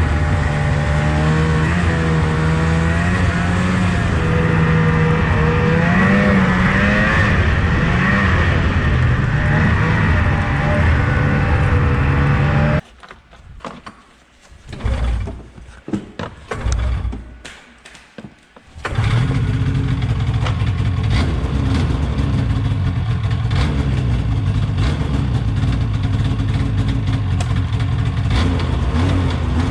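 Two-stroke snowmobile engine running under throttle, its pitch rising and falling. About halfway through it drops away to a much quieter stretch with a few short bursts, then runs steadily again.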